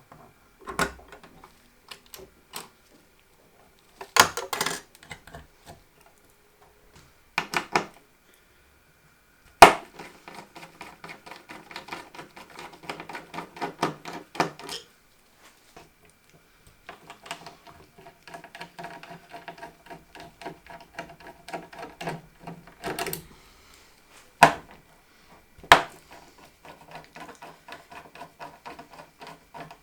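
Computer parts being handled and fitted together by hand: sharp plastic and metal clicks, with long stretches of rapid fine ticking and rattling like screws being driven in.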